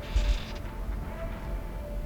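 Background music with steady held notes over a low rumble, and a short rustling burst just after the start.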